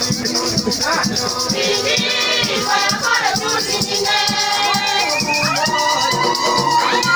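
Church choir singing live, many voices together, with shakers rattling a steady beat.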